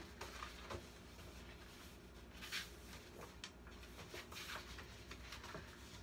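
Paper pages of a picture book being handled and turned: a few soft, short rustles and brushes, the loudest about two and a half seconds in and another near four and a half seconds.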